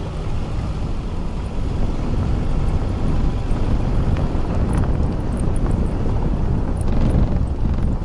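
Car driving along a gravel dirt road: a steady low rumble of the engine and tyres on the loose surface, with wind buffeting the microphone. The rumble gets a little louder about two seconds in, and a few faint ticks come through later.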